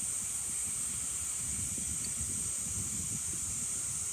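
Steady high-pitched drone of cicadas in summer woodland, with gusts of wind rumbling on the microphone underneath.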